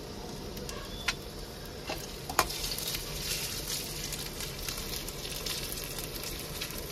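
Diced potatoes, onion and green chillies sizzling in hot oil in a kadhai as they are stirred, a steady crackling hiss with two sharp clicks about a second and two and a half seconds in.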